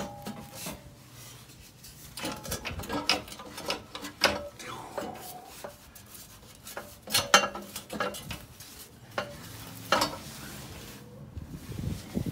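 Metal knocks, clanks and scrapes as the Porsche 997 Carrera 4S's unbolted exhaust header and catalytic converter pipework is shifted and worked down under the car. There are many short knocks with a brief ring after some. The loudest clanks come about seven and ten seconds in.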